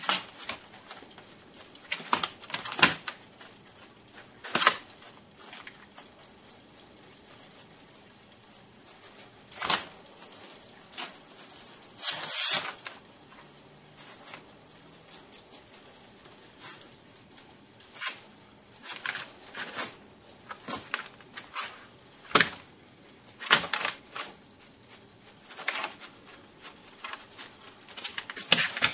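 Skunk scratching and rustling about inside a box as it hunts crickets: irregular short scrapes and rustles, a few louder scrabbles among quieter ones.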